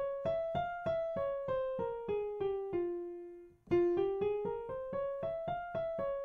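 Piano playing the F harmonic minor scale in single, evenly spaced notes, an octave up and back down. A run comes down to a held low note, and about three and a half seconds in a second run starts up and turns back down near the end.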